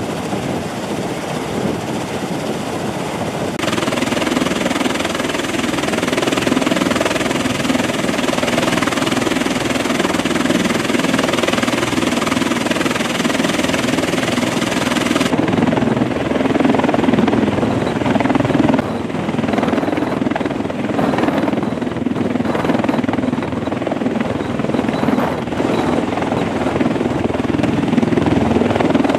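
MV-22B Osprey tiltrotor running: its twin turboshaft engines and large proprotors make a loud, steady drone. The sound changes abruptly twice, about four and about fifteen seconds in.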